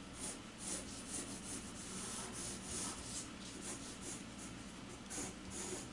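Graphite pencil drawing on paper: a run of short, quick strokes scratching across the sheet.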